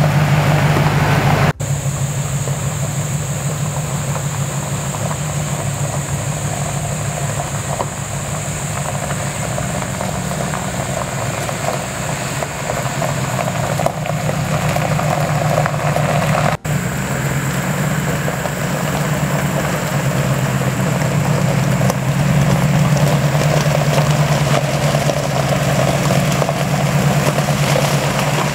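Supercharged Gen 3 Coyote 5.0 V8 in a 1978 Ford F350 running at low speed, a steady engine note through a Magnaflow H-pipe muffler and Vibrant resonators. The sound breaks off for an instant twice, about a second and a half in and again past the middle.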